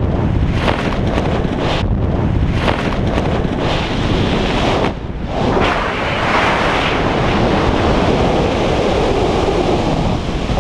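Heavy wind buffeting the action camera's microphone in a tandem skydive, through the end of freefall and the parachute opening. The rush is steady and loud, with a short dip about halfway through.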